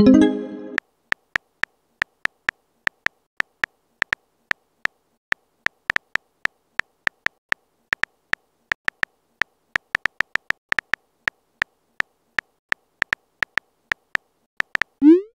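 Keyboard tap clicks from a texting app, a few short, slightly tonal taps a second as a message is typed. At the start and again near the end a short rising message-sent sound plays.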